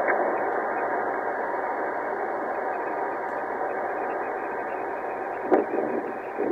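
Steady radio static hiss, slowly fading, with two brief crackles about five and a half and six and a half seconds in.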